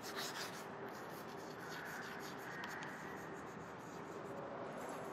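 Chalk writing on a blackboard: a faint run of short, irregular scratching strokes, busiest at the start.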